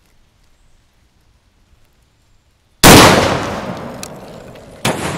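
One shot from a 20-gauge Pedersoli Baker Cavalry double-barrel black-powder percussion shotgun about three seconds in: a loud blast that rings off slowly. About two seconds later comes a second, quieter sharp crack.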